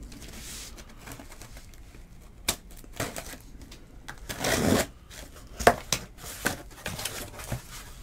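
Trading-card boxes and their plastic packaging being handled: scattered clicks and taps, with a short rustling tear about four and a half seconds in that is the loudest sound.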